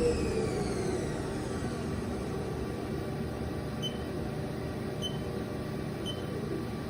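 Sub spindle of a Haas DS30Y CNC lathe winding down from high speed: its whine falls in pitch over the first second or so. The machine's steady hum follows, with three faint short chirps about a second apart.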